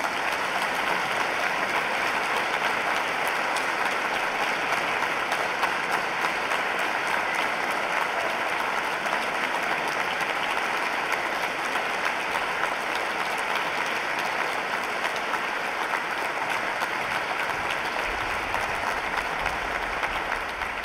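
Audience applauding: a steady, dense wash of clapping at the end of a performance.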